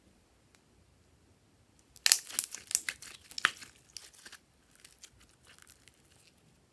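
Glossy slime squeezed and pulled in the hands, giving a dense run of sharp sticky crackles and pops for about two seconds, starting about two seconds in, then a few fainter clicks.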